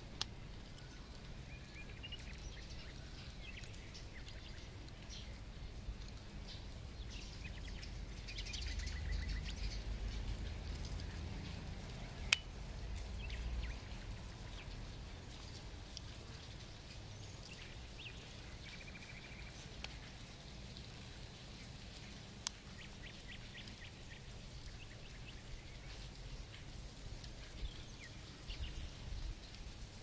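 Victorinox Swiss Champ multi-tool being handled, its blades and tools clicking as they snap into place, with two sharp clicks standing out, about twelve and twenty-two seconds in. A low rumble swells in the middle, and faint high chirps sound in the background.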